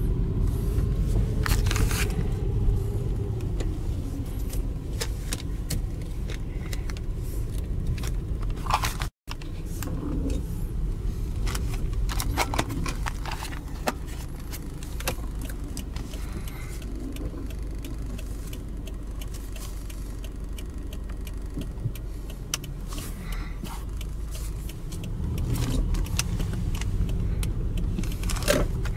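Inside a car driving slowly: a steady low engine and road rumble, with frequent small rattles and clicks like jangling keys. The sound cuts out completely for a moment about nine seconds in.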